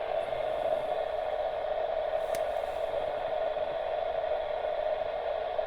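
Xiegu G90 transceiver's speaker giving a steady open-squelch static hiss on FM, with no station transmitting, and a faint click about two seconds in.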